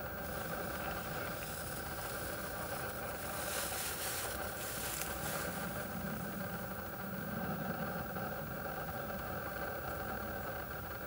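A steady mechanical hum with a low rumble, like an engine running, with a brief swell of hiss a few seconds in.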